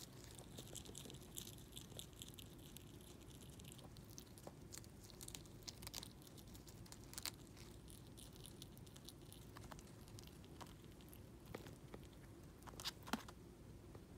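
Richardson's ground squirrel chewing komatsuna stalk and leaves: faint, crisp crunching with quick chewing clicks, a fast steady run of them for the first few seconds and a few louder bites near the end.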